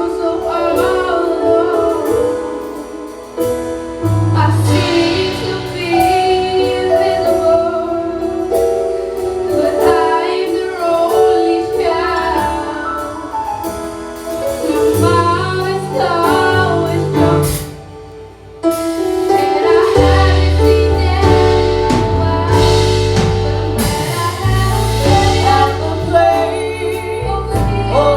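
A gospel song sung by a woman over instrumental accompaniment, which drops out briefly and comes back with a heavier bass part.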